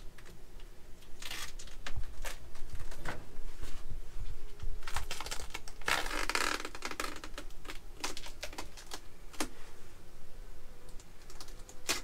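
Tape being peeled off the entrance of a bee swarm box: a run of crackling clicks, with a longer ripping stretch about six seconds in.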